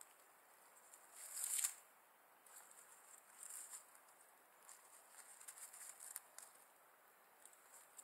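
Dry reed stems of a common crane's nest crackling and rustling as the crane works its bill in the nest around its eggs, in short soft bursts, the loudest about a second and a half in.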